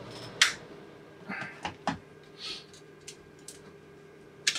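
Bench handling of an opened Logitech G703 mouse during cleaning: a few sharp small plastic clicks and taps as the shell and circuit board are picked up and handled, with brief rustles of a tissue wiping.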